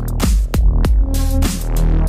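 Background music with a steady, heavy beat and deep bass.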